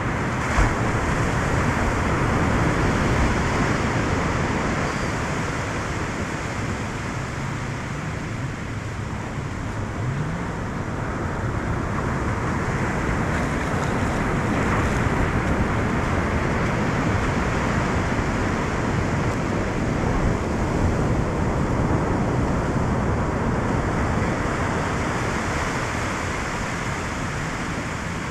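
Surf washing up the beach, with wind on the microphone: a steady rushing that slowly swells and eases, with one brief knock about half a second in.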